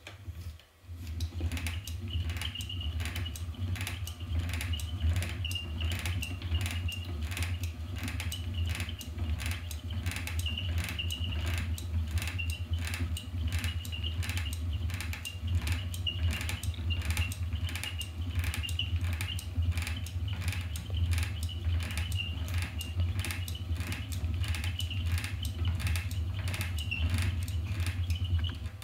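Wooden treadle spinning wheel turning, its mechanism clacking in a regular rhythm about twice a second over a low steady rumble; it starts abruptly and cuts off near the end.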